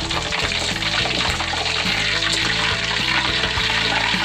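Hot cooking oil in a wok sizzling while fried chicken pieces are lifted out in a metal spider skimmer and held over the pan to drain. Background music with a steady melody plays over it.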